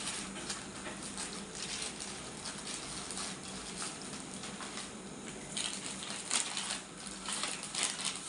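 Irregular crinkling, rustling and light clicking of plastic packaging and small medical items being handled and cleared away, busier in the second half, over a low steady hum.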